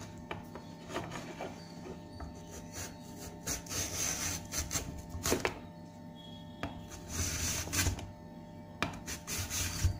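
Raw green banana scraped against the blade of a hand-held plastic slicer, shaving strips of skin off in a few uneven scraping strokes.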